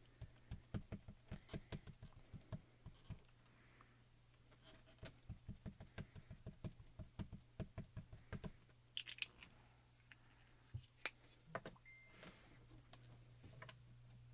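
A small dye-ink cube pad tapped repeatedly onto a clear photopolymer stamp to ink it: two runs of quick soft taps, about four or five a second. After that come a few separate, sharper clicks and knocks.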